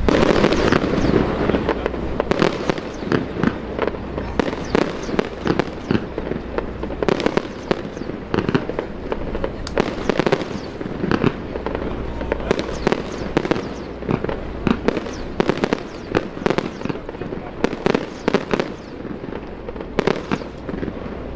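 Fireworks display: aerial shells bursting in a rapid, irregular string of bangs and crackles, densest and loudest at the start.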